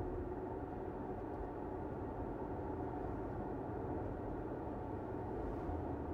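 Steady road noise of a car driving along, tyres rolling on the road surface, even and unchanging.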